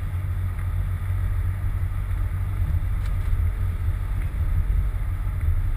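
Low wind buffeting on the microphone of a camera mounted on the front of a moving Land Rover Freelander 2, with steady road rumble underneath.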